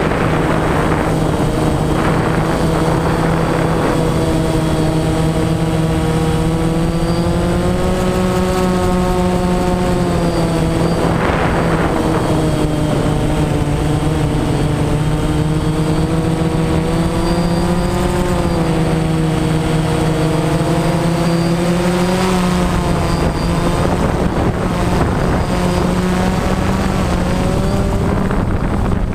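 Motor and propellers of the radio-controlled model aircraft carrying the camera, a steady hum whose pitch drifts slightly and rises a little near the end, with a few brief rushes of noise.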